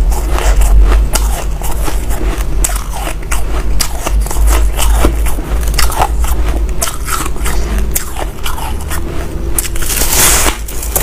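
Close-miked crisp crackling and crunching of white powdery ice, packed like frozen snow, as it is handled and chewed. A louder crunch comes near the end as a chunk is bitten.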